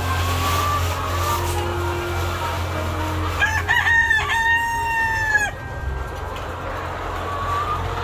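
A rooster crows once, about three and a half seconds in, one drawn-out call of about two seconds. Softer hen clucks come before and after it, over a steady low hum.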